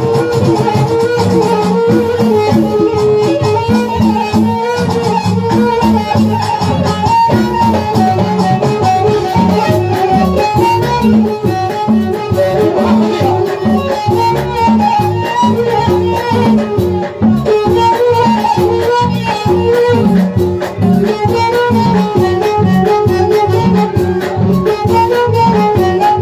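Live Moroccan chaabi band music: an instrumental passage with an ornamented, wavering keyboard melody over a steady, driving percussion beat.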